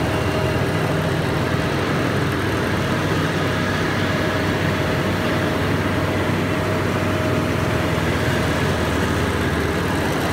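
Riding lawn mower's engine running steadily while mowing grass.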